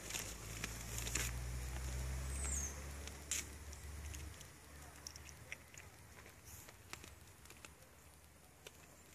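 Young deer crunching acorns as it eats from a hand: a scatter of small sharp cracks. A low rumble runs through the first four seconds, and a brief high chirp sounds about two and a half seconds in.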